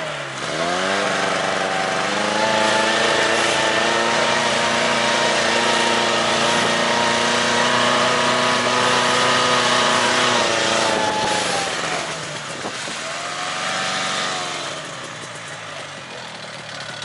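Snowmobile engine running while riding through snow. Its pitch dips and picks back up about a second in, then holds steady for several seconds. Later it eases off, rises briefly again, and gets quieter near the end.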